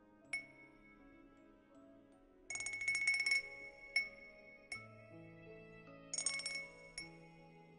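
A small wind-chime cup rung in a rhythm: single bright ringing strikes, twice broken by a quick shaken jingle, a little after two seconds in and again near the end. Soft background music plays underneath.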